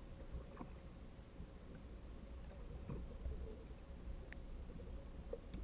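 Underwater ambience picked up by a submerged camera: a low steady rumble of water with a faint steady hum and a few scattered small clicks.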